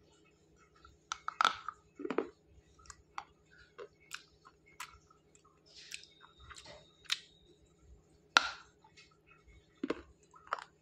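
Close-up biting and chewing of a dried, baked clay bar: irregular sharp crunches and clicks, the loudest about a second and a half in, at two seconds, and near the end. The clay is hard and very crunchy. A faint steady hum sits underneath.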